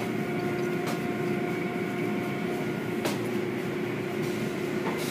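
Automatic car wash machinery running through its foam cycle: a steady hum with a constant rush of noise, and two brief clicks, about a second in and about three seconds in.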